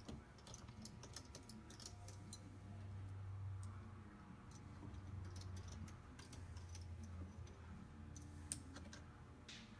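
Faint, scattered light metallic clicks and taps as small bolts holding a KTM two-stroke power-valve keeper plate are run in by hand with a hex driver on the aluminium cylinder, over a low steady hum.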